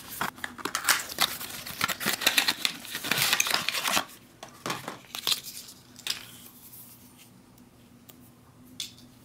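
Thin cardboard carton being cut and torn open by hand: a dense run of crackling, tearing and rustling for about four seconds, then a few scattered rustles and taps as the food tube is slid out of the box, quieter toward the end.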